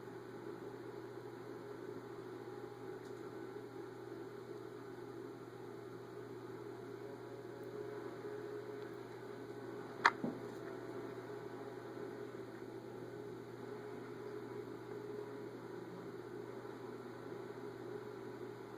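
Steady low hum and hiss of background room tone, with a single sharp click about halfway through.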